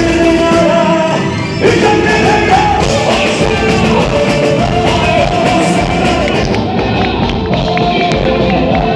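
Loud boi-bumbá toada music with a sung melody over the band.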